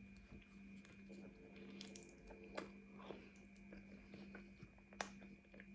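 Faint close-up chewing of a mince burrito, with scattered soft mouth clicks and smacks, the sharpest about two and a half and five seconds in, over a steady low electrical hum.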